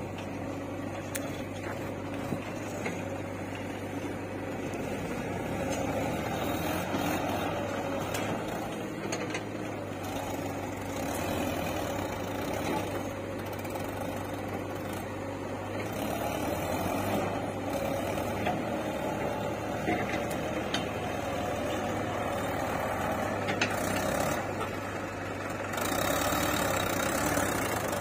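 Farm tractor's diesel engine running steadily as it pulls a trolley loaded with soil, louder near the end.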